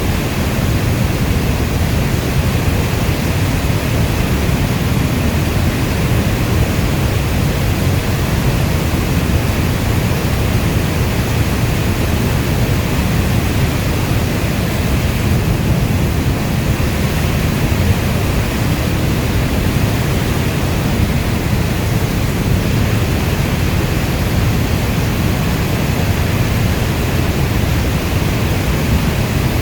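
Steady, unbroken rainstorm noise, heaviest in the low end like brown noise, with no single drops, thunder or other events standing out.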